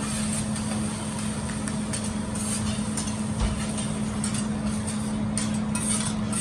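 Fried rice sizzling on a flat steel teppanyaki griddle, with metal spatulas scraping and tapping against the steel again and again, over a steady hum.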